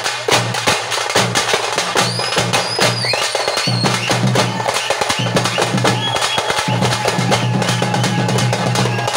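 Thappu (parai) frame drums beaten fast with sticks in a dense, driving rhythm, over a steady low tone. A short high whistling tone glides briefly about two to three seconds in.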